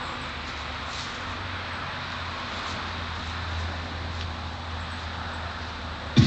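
A steady low rumble with a soft hiss and no music. Just before the end, a loud track with record scratching starts abruptly.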